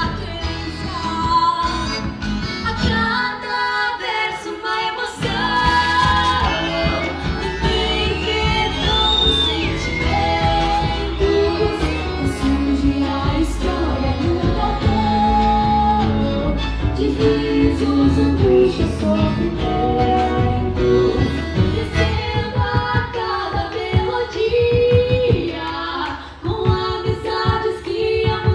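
Live gaúcho native song: two female voices, a girl and a young woman, singing with a band of accordion, acoustic guitars and bass guitar.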